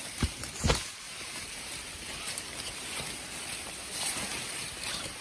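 Maize leaves and stalks rustling and brushing against clothing as someone pushes through a cornfield. Two dull thumps come about half a second apart in the first second.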